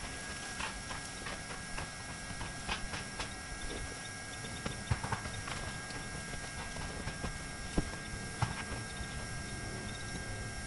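Irregular sharp taps and knocks from a roofer's boots and knees on the roof deck while he unrolls and presses down an SBS modified-bitumen membrane sheet.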